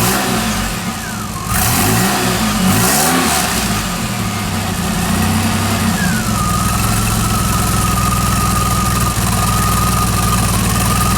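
1981 DeLorean DMC-12's V6 running through a DPI SPEC I stainless steel exhaust, blipped a few times in the first few seconds, then settling to a steady idle from about six seconds in.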